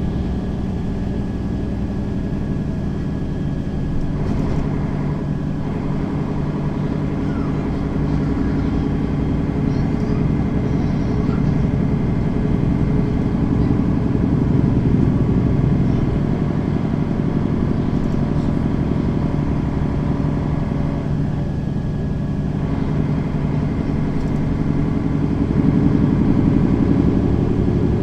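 Mercedes-Benz Citaro facelift city bus's diesel engine running as the bus drives along, heard from inside the bus. The engine note grows louder around the middle and again near the end as the bus picks up speed.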